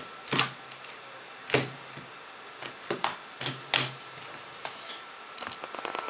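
A series of sharp clacks and knocks from hard objects being handled and set down on a desk: about six distinct knocks over the first four seconds, then a patter of faint small clicks near the end.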